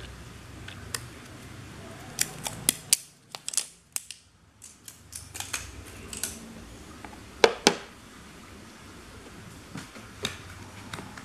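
Handling noise of small cylindrical batteries: scattered sharp clicks and taps as they are picked up, knocked together and set down on a hard plastic case, the loudest two close together a little past the middle.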